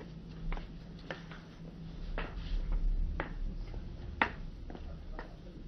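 Footsteps on a hard floor, short soft steps about a second apart, over a low steady hum.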